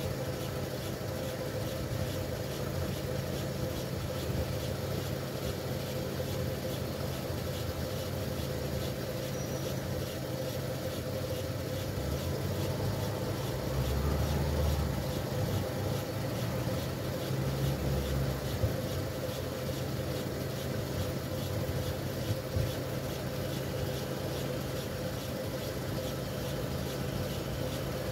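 A steady low engine rumble that swells twice, briefly, about halfway through.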